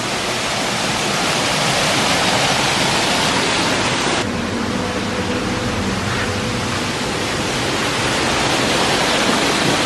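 Artificial rock waterfall pouring into a small garden pond: a steady rush of falling water, a little duller from about four seconds in.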